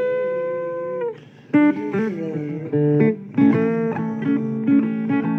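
Blues guitar music with no singing: one note held for about a second, a short pause, then a run of picked notes and chords.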